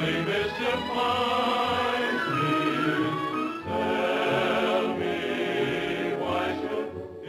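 A chorus of voices singing held notes over an orchestra, a musical-theatre production number, with a short break about halfway before the voices swell again.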